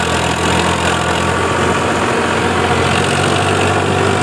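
Farmtrac 45 tractor's diesel engine running steadily under load as it pulls a trolley heaped with soil through soft, loose earth.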